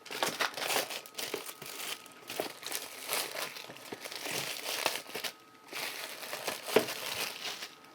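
Plastic shrink-wrap being pulled and crinkled off a cardboard software box: irregular crackling that goes on with a brief lull a little past the middle.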